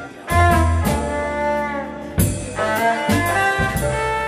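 Live jazz combo playing: violin over double bass, keyboards and drums. The band comes in hard about a third of a second in and accents again just after two seconds.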